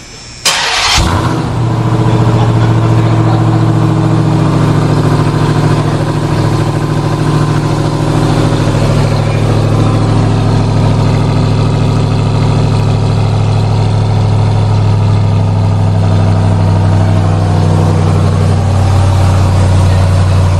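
2021 Ram 1500 TRX's supercharged 6.2-litre Hellcat V8 starting up about half a second in with a sudden loud burst, then idling steadily and loudly.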